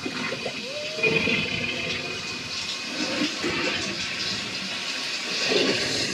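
Steady hiss of heavy rain from a TV film soundtrack, with a few short pitched sounds over it, one a brief rising glide under a second in.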